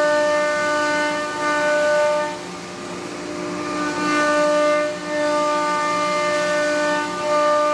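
Thermwood Cut Center CNC router's spindle whining steadily as the bit cuts through a wooden sheet, louder while cutting and easing off in quieter stretches about two and a half seconds and five seconds in.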